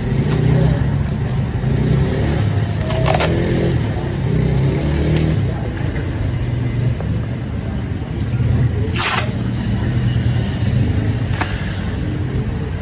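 Steady low rumble of a vehicle engine or street traffic, with a few short sharp noises over it, the longest and loudest about nine seconds in.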